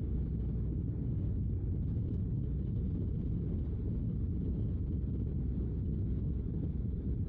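Honda NC750X DCT motorcycle's parallel-twin engine running at steady cruising speed, heard as a steady low rumble mixed with wind noise on the microphone.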